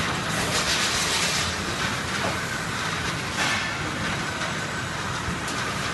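Factory-floor machinery noise from an automotive assembly line: a steady rumble and hiss of conveyors and equipment, with louder hissing stretches about half a second in and again at about three and a half seconds.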